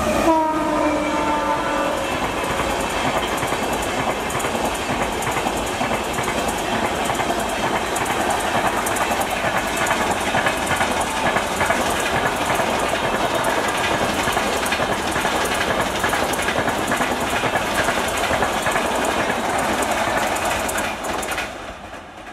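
Electric locomotive horn sounding as it passes, its pitch dropping, followed by a long passenger train rushing past at speed with its wheels clattering over the rail joints. The sound fades away near the end.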